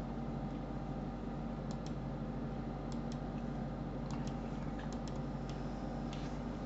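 Scattered light clicks from working a computer's mouse and keys, several in quick pairs, over a steady low electrical hum.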